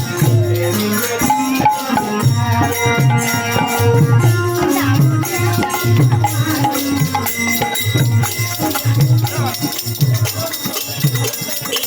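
Music with a steady beat and rattling shaker-like percussion.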